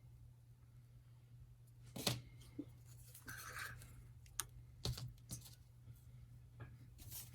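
Scattered small clicks and taps with a short rustle, from handling plastic headphone ear-pad parts; the loudest click comes about two seconds in.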